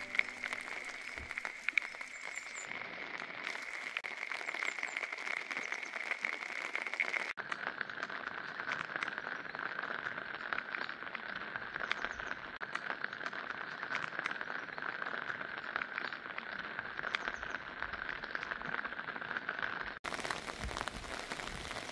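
Outdoor ambience of a steady, high-pitched animal chorus with many small crackling clicks. Its pitch drops slightly at a cut about seven seconds in, and the sound changes again near the end.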